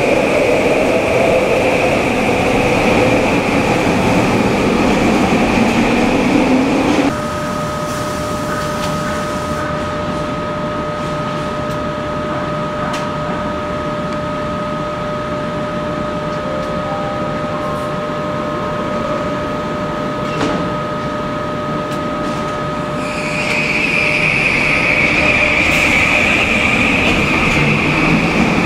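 Automated SkyTrain metro train running along the platform with a high whine, then a sudden drop to a quieter steady electric hum of two fixed tones while it stands. About five seconds before the end the whine and running noise return as it pulls away.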